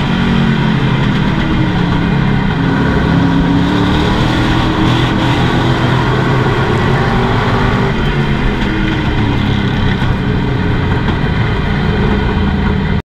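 Pro Truck race engine heard from inside the cab at racing speed, loud and steady, its pitch climbing and then falling as it is driven. The sound cuts off suddenly near the end.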